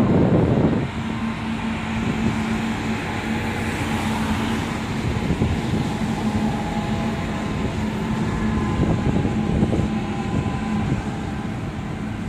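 Pacific National NR class diesel-electric freight locomotives (GE Cv40-9i) running past under power, with a steady low engine hum over rumbling noise. Wind buffets the microphone for about the first second.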